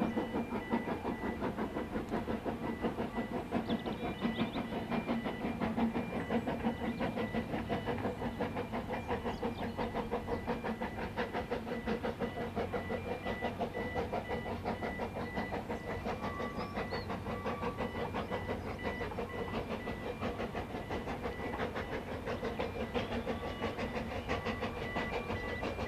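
Narrow-gauge steam train running, with a steady, rapid rhythm of beats.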